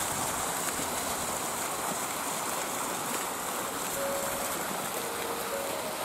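Steady rushing noise with no distinct events. A few soft held musical notes come in about four seconds in.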